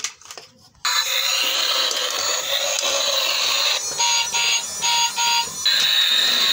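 Battery-powered transforming robot car toy playing its electronic music and sound effects through a tinny built-in speaker. The sound starts suddenly about a second in, after a few light plastic clicks, with a run of short beeps midway.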